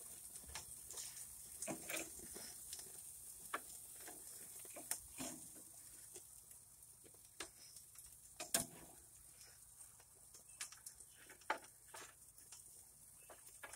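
Metal spatula clinking and scraping against a gas grill's cast grate and a foil pan as burgers are lifted off, in scattered faint knocks, the loudest about eight and a half seconds in. A faint steady hiss from the hot grill runs underneath.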